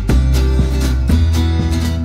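Background music: strummed acoustic guitar with a steady beat and a strong bass line.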